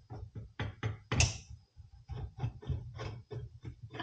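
Irregular knocks and clunks of steel 41mm fork tubes being slid out of a motorcycle's triple trees and handled, with a louder clunk a little over a second in and another at the end.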